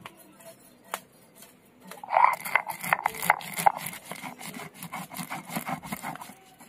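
Mustard seeds crackling and crunching as a stone roller (nora) is worked back and forth over them on a flat grinding stone (sil), grinding them into mustard paste. A few isolated clicks come first, then dense crunching strokes start about two seconds in and stop shortly before the end.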